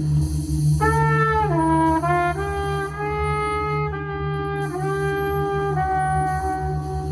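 Trumpet entering about a second in and playing a slow improvised line of held notes that step down and back up, ending on a long sustained note, over a steady low electronic drone from noise pedals.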